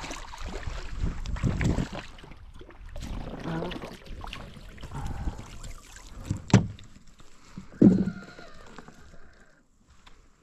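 A hooked shad thrashing and splashing at the water's surface beside a kayak, then landed in a net, with a sharp knock and a heavier thump against the kayak a few seconds apart in the second half.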